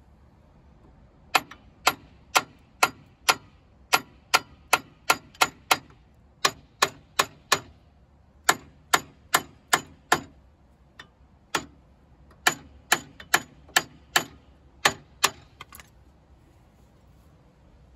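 Hammer blows ringing on a metal pipe used as a driver, knocking a new lower ball joint down into the control arm. About thirty strikes in quick runs of two to three a second, with short pauses between runs.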